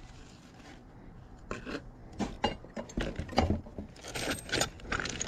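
Gloved hands rummaging through dumpster debris, with paper, plastic and cardboard rustling and scraping. Irregular light knocks and rustles start about a second and a half in.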